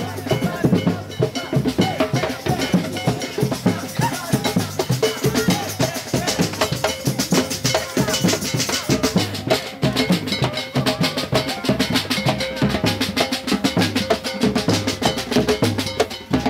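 Drum-led music with a fast, steady beat of bass and snare hits.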